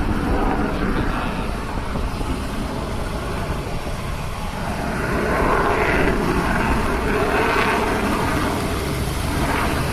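Piston-engined propeller aircraft flying over, the engine noise swelling again about halfway through.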